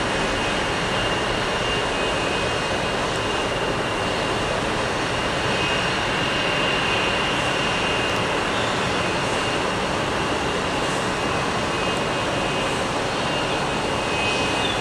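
Boeing 737-900ER's CFM56-7B turbofan engines at takeoff thrust as the airliner lifts off and climbs away: a steady rushing jet noise with a thin, high, steady whine.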